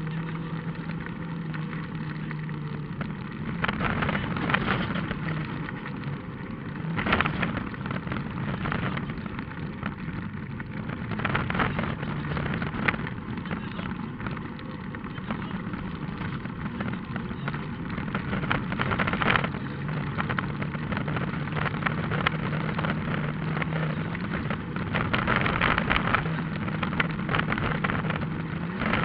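Rally car driving on a dirt road: the engine runs at a fairly steady pitch under a constant noise of tyres and gravel, with several louder bursts of stones and gravel clattering against the car.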